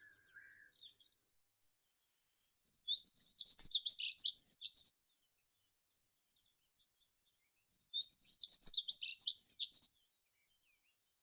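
A songbird singing two quick, high-pitched warbling phrases of about two seconds each, a few seconds apart, with a few faint chirps between them.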